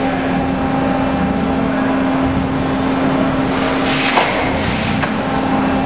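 Pines AD 35 CNC tube bender's hydraulic power unit running with a steady hum. About three and a half seconds in, a short burst of hiss ends in a sharp click, and a fainter click follows about a second later.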